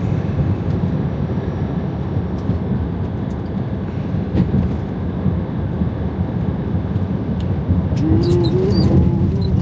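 Inside the cab of a Freightliner Cascadia semi truck on the move: a steady rumble of engine and road noise. Near the end come a few brief high squeaks, just a little squeaky.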